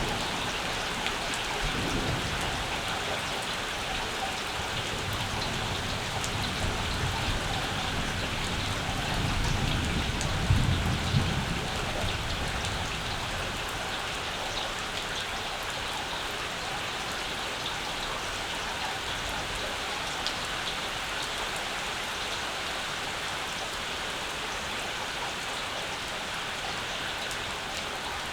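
Steady rain falling, a constant hiss of drops. A low rumble of distant thunder runs through the first half, swelling to its strongest about ten seconds in, then fades.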